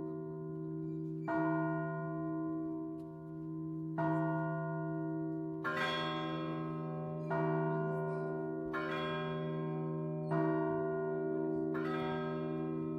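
Russian Orthodox church bells being rung. A large bell is struck about every three seconds and its deep hum carries between strokes. From about the middle, smaller, brighter bells are struck in the gaps between its strokes.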